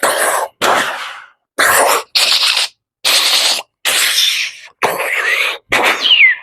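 A man imitating a battle with his mouth: a string of about eight short, hissing blasts with gaps between them, several with a falling whistle, vocal imitations of gunfire and incoming shells exploding.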